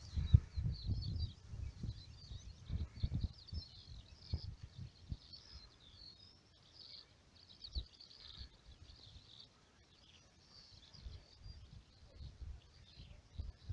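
Small birds chirping faintly and continuously over an open field, with low thumps and rumbles on the microphone, heaviest in the first few seconds.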